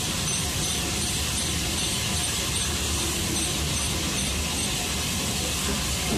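Steam locomotive and train running: a steady rumble and rush of running noise, with a high squeak repeating about three times a second.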